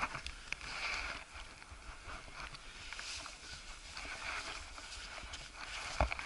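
Faint scuffs and small taps of a climber's hands and boots moving over limestone rock, with one sharper knock about six seconds in.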